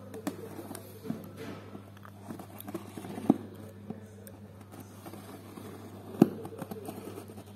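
Scissors and fingers working at plastic packing tape on a cardboard box: light scraping, crinkling and small taps, with two sharp knocks about three and six seconds in, over a steady low hum.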